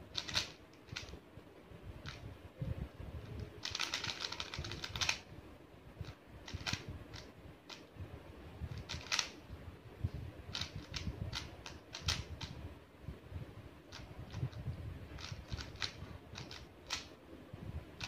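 Plastic 3x3 speed cube being turned by hand: irregular clicking as its layers snap round, with a quick flurry of turns about four seconds in.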